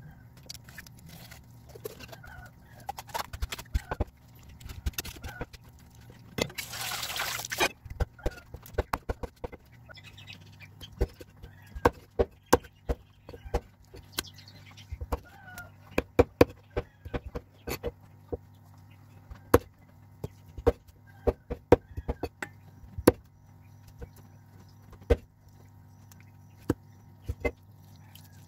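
A large kitchen knife chopping raw chicken on a round chopping board: irregular sharp knocks, at times several a second. About seven seconds in, a hiss lasts about a second.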